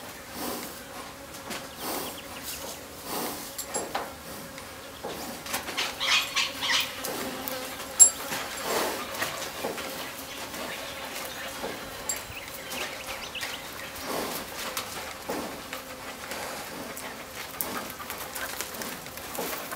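Faint buzzing of flying insects, with soft rustling and knocks throughout and one sharp click about eight seconds in.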